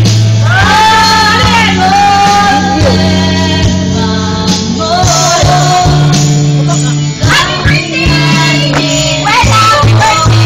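Karaoke: a woman singing into a microphone over loud backing music with held bass notes, the wavering sung line breaking off and picking up again.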